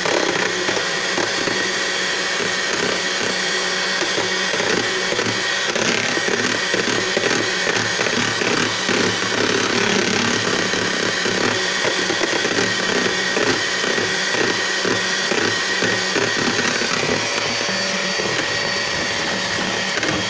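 Electric hand mixer running steadily, its beaters whisking egg whites and yolks together in a bowl.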